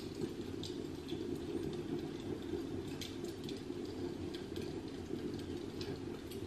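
Steady low hum of room noise, with a few faint light clicks as a plastic action figure is handled and turned over in the hand.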